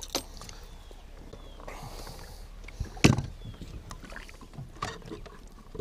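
Handling sounds in a small flat-bottom boat while a small musky is released over the side: light clicks and a brief hiss, with one louder knock about three seconds in.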